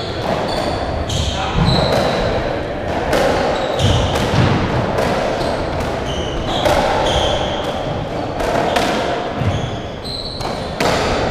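Racketball ball bouncing on the court floor and struck by racquets into the walls, a string of sharp knocks at an uneven pace, with short high squeaks of trainers on the wooden floor.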